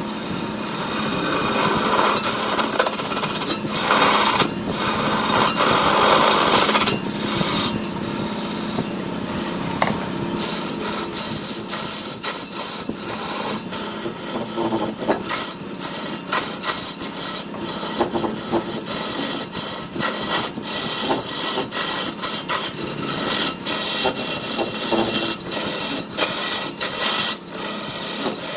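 Wood being cut on a lathe: a turning tool scraping against a spinning redwood blank, a loud continuous rasping that, from about a third of the way in, breaks off briefly again and again as the tool lifts from the wood.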